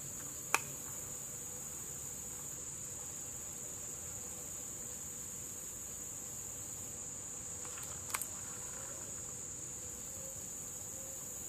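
A steady, high-pitched chorus of insects trilling. A sharp click comes about half a second in, and a quick double click around eight seconds.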